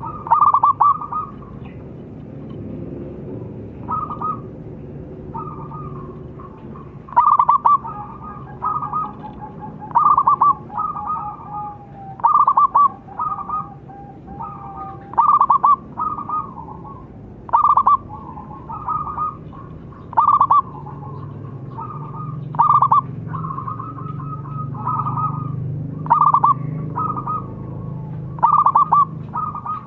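Zebra dove (perkutut) cooing: short bursts of rapid staccato coos, repeated every second or two, over a low steady hum.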